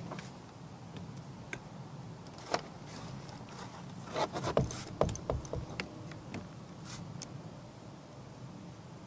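Clicks and knocks from hands working the mount and tiller of an electric trolling motor, clustered around the middle. A steady low hum runs underneath.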